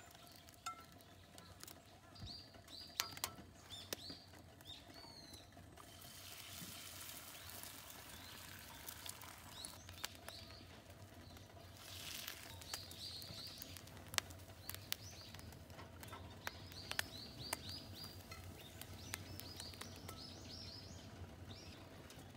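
Small birds chirping over and over, with scattered sharp clicks. About a quarter of the way in, a steady sizzle from food frying in a pan over a wood fire sets in, and it grows louder around the middle.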